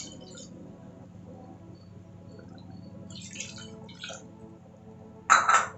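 Water poured from a cup into a pressure cooker of thick chicken curry, pouring and splashing into the gravy, with a brief louder splash near the end.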